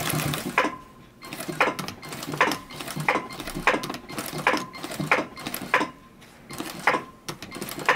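Brother single-needle, needle-feed industrial sewing machine stitching heavy denim in short, slow bursts: a series of sharp mechanical clicks, roughly one or two a second and unevenly spaced, several with a brief whine.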